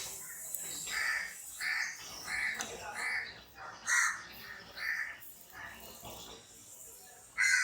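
A bird calling over and over, about a dozen short calls spaced well under a second apart.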